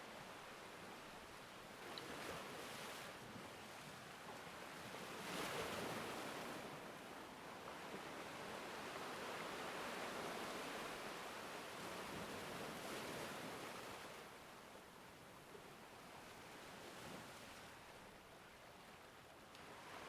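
Faint ocean ambience: a soft rushing wash of water that swells and fades several times.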